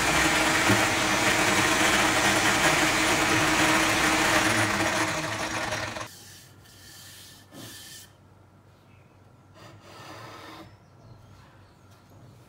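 Homemade drum sander driven by an angle grinder, running with a pine board rubbing against its sandpaper drum: a steady rasping grind that cuts off suddenly about six seconds in. A few faint knocks of wood being handled follow.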